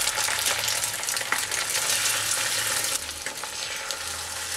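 Beaten egg sizzling in hot oil in a nonstick kadai as it sets into an omelette, with fine crackling throughout, easing a little about three seconds in.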